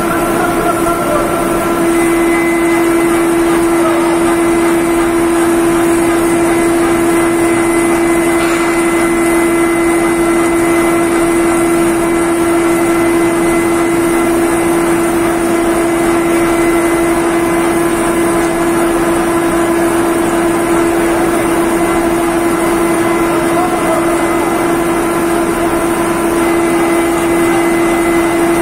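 D51Y-1000 ring rolling machine running as it rolls a ring: a loud, steady mechanical drone with a strong, even hum, which firms up about two seconds in.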